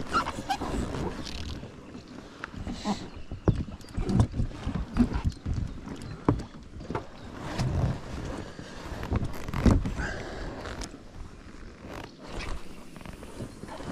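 Irregular knocks, clicks and rustling of fishing gear being handled, with a few sharper knocks standing out.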